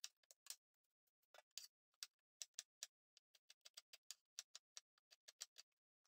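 Chef's knife chopping an onion on a plastic cutting board: a faint, quick, uneven run of sharp knocks, several a second.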